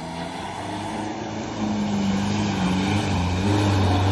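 Engine of a 4x4 SUV pulling through a shallow river crossing, with water splashing. The engine note steps up about a second and a half in and gets louder near the end.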